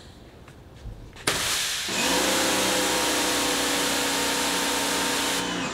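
Electric pressure washer spraying through a 15-degree nozzle: a loud steady hiss of water starts about a second in, and the motor and pump hum joins it half a second later and runs steadily. The motor kicks in only after the trigger is pulled, as its total-stop system lets it rest until then. Both cut off together near the end when the trigger is released.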